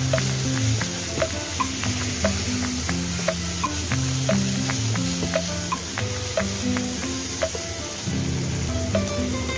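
Minced beef and onions sizzling in a frying pan, stirred with a wooden spoon, with an even high hiss of frying throughout. Background music with held bass notes and a light regular beat plays over it.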